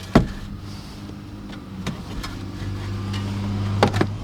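A few sharp metallic clicks and knocks as a hitch fastener is fished out through the bumper, over a steady low hum that grows louder toward the end.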